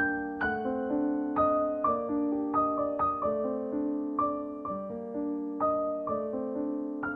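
Background piano music: a gentle melody of struck notes, about one or two a second, over held chords.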